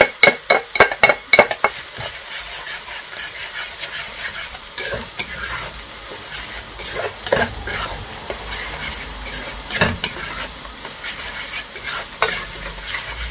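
A rapid run of ringing clinks from a ceramic plate as chopped garlic is knocked off it into the pan, then onions and garlic sizzling in hot oil while a spatula stirs and scrapes them around a nonstick pan.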